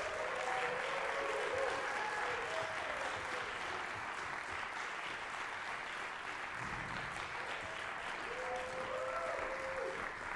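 Concert audience applauding steadily, with a few short pitched calls rising and falling over the clapping near the start and again near the end.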